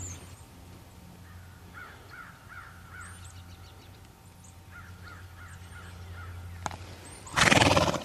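Crows cawing in two runs of about five caws each, with a faint low hum underneath. Near the end comes a short, loud rush of noise, the loudest sound here.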